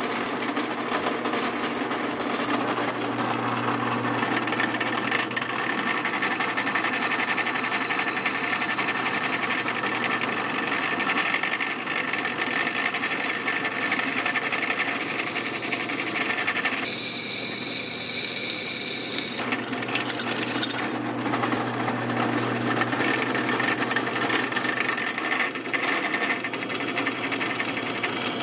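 Benchtop drill press running, its twist bit cutting a hole through lawnmower-blade steel lubricated with cutting oil: a steady motor hum under the grinding of the bit. A higher whine comes through briefly about two-thirds of the way in.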